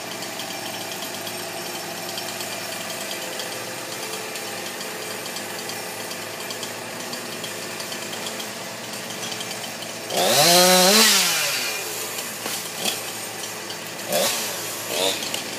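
Gas chainsaw idling steadily, then revved once about ten seconds in, its pitch rising and falling, with a short, loud rasp. Two shorter, smaller blips follow near the end.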